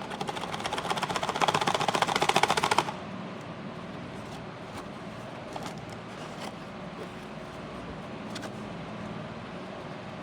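Packaging being ripped open: a rapid run of ticks that builds for about three seconds, then stops abruptly, followed by a few faint crinkles and taps.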